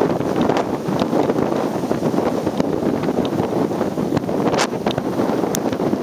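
Strong typhoon wind buffeting the microphone: a dense, steady rumbling noise with a few short crackles scattered through it.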